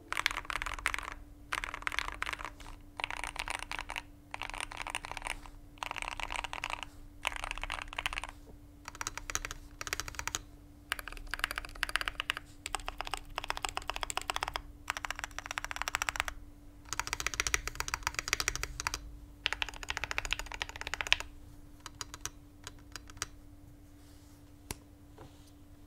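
Typing on a Pressplay Voyager 68 mechanical keyboard: runs of rapid keystroke clicks a second or two long with short pauses between them, stopping a few seconds before the end. A faint steady hum runs underneath.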